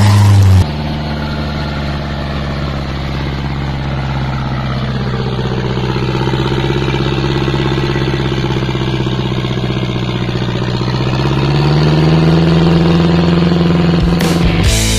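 Daihatsu Taft 4x4's engine running steadily at low revs, the revs rising a little about twelve seconds in. In the first moment a louder engine run cuts off abruptly.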